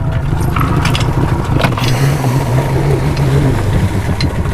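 Boat motor running at low speed while the boat is eased in to shore, its note dropping slightly about three and a half seconds in, with a few sharp knocks.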